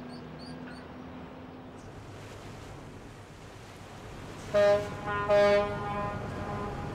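River cruise ship's horn sounding two short blasts about halfway through, loud and pitched, trailing off afterwards.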